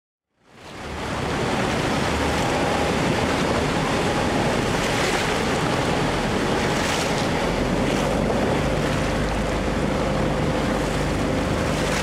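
The Rhine Falls waterfall heard up close from a boat at its foot: a steady rush of falling and churning water. It fades in over the first second.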